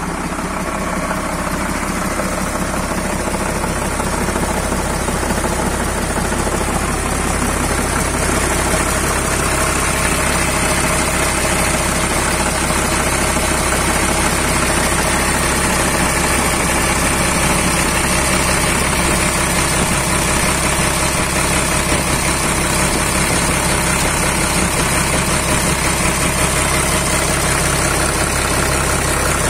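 Fendt Favorit 512C tractor's six-cylinder MWM diesel engine idling steadily, heard up close at the engine bay. It grows a little louder over the first several seconds.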